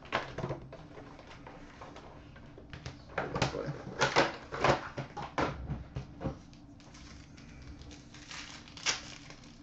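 Foil-wrapped Panini Titanium hockey card packs and their box handled by hand, the foil wrappers crinkling and tearing open in irregular sharp crackles, thickest in the middle and once more near the end.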